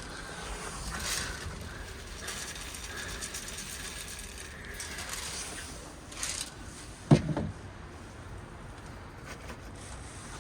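Gusty wind rumbling on the microphone, with a thin faint drawn-out tone during the first few seconds and a single sharp knock about seven seconds in.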